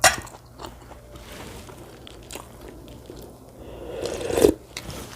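Close-miked eating: chewing and biting with small crunches, a sharp click right at the start, and a louder rising sound that peaks about four and a half seconds in.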